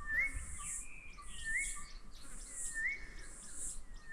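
A bird repeating a short rising whistle about every second and a half, over high-pitched insect buzzing that swells and fades in pulses.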